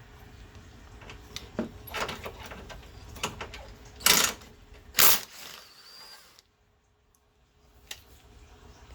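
Tool work on the car's fastening bolts: scattered clicks and knocks, with two short loud mechanical bursts about four and five seconds in.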